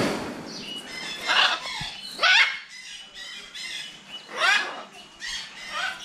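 Macaws squawking: about five loud, harsh calls a second or two apart, each sweeping up and then down in pitch.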